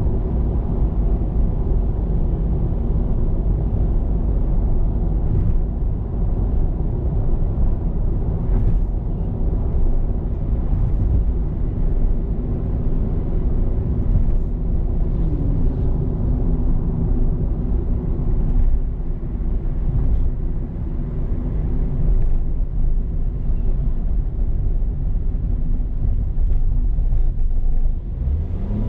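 Car driving at steady speed, heard inside the cabin: a continuous low rumble of tyre and road noise with the engine's hum, whose note dips slightly about halfway through.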